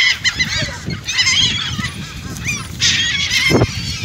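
A flock of birds crowding for food, calling over one another in bursts of short, overlapping squawks and rising cries.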